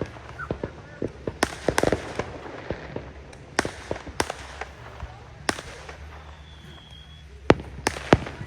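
Fireworks display: a string of sharp bangs and pops at irregular intervals, with the loudest reports near the end.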